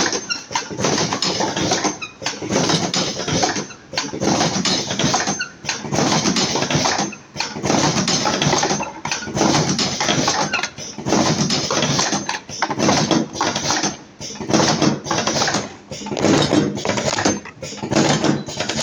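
Automatic cartoning machine running, its mechanism working through a repeating cycle about every one and a half to two seconds.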